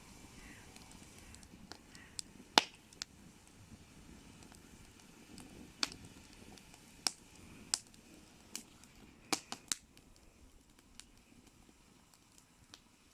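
Wood campfire crackling: sharp, irregular pops and snaps, the loudest about two and a half seconds in and a quick cluster near nine and a half seconds, over a faint steady background.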